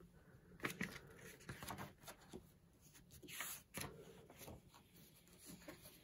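Faint, intermittent rustling and sliding of paper brochures being moved and laid down on a table, with a few soft knocks of handling.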